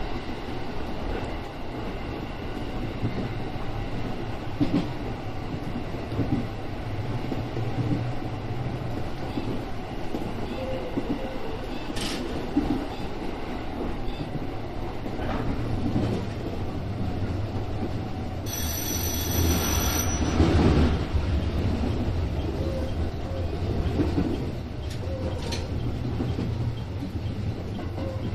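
JR West 205 series electric commuter train running, heard from inside the driver's cab: a steady low hum of motors and wheels on rail, with scattered clicks. About two-thirds of the way through, a brief high steady tone sounds, followed by the loudest stretch, a heavier rumble.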